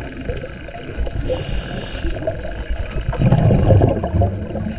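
Underwater sound of a pod of Hawaiian spinner dolphins vocalizing: a dense crackle of clicks and grunts with faint whistles above it. About three seconds in, a louder low rushing swell lasts about a second.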